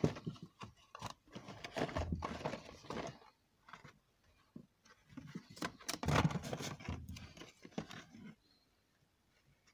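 Packaged spools of fishing line and reels being rummaged through in a cardboard box: cardboard and plastic packaging rustling and knocking together. It comes in two bouts of handling and goes quiet near the end.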